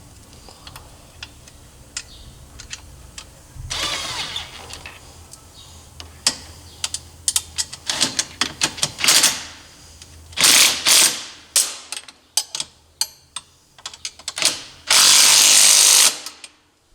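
Bolts being tightened with wrenches: ratchet clicking and metal tool knocks, with two louder bursts of a second or so about halfway through and near the end.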